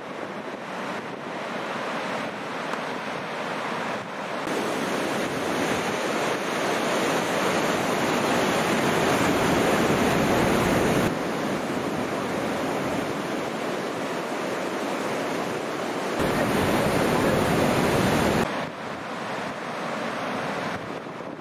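Ocean surf breaking and washing in, a steady roar of water noise with wind buffeting the microphone. The level jumps up and down abruptly a few times.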